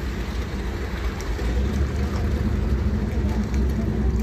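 A vehicle engine running close by, a steady low rumble that grows a little louder after about a second and a half as it draws nearer.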